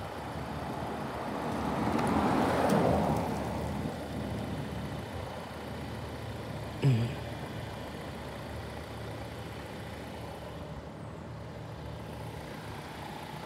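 A car driving past on an asphalt road, its tyre and engine noise swelling to a peak about two to three seconds in and then fading away. A brief sharp sound comes near seven seconds in, over a steady low traffic-and-engine hum.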